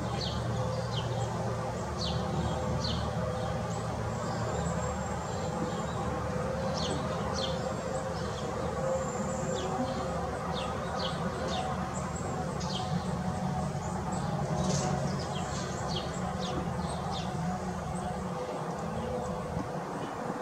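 Birds chirping: many short, high chips at irregular intervals, over a steady low background rumble.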